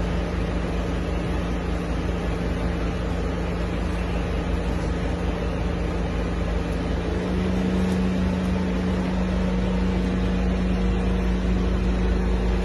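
Steady mechanical hum with a low held drone, getting a little stronger about seven seconds in.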